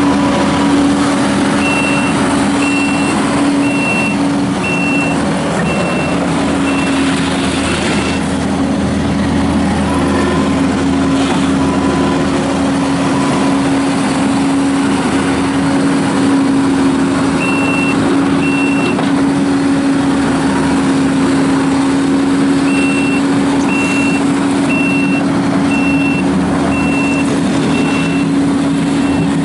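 Kubota SVL75-2 rubber-track skid steer loader's diesel engine running steadily. Its backup alarm beeps about once a second in three spells while the machine reverses.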